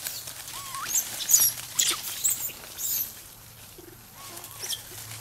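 Young macaques squealing in short, high-pitched, gliding cries while they wrestle, with dry leaf litter rustling under them. The cries come in a quick cluster between about one and three seconds in, with one more near the end.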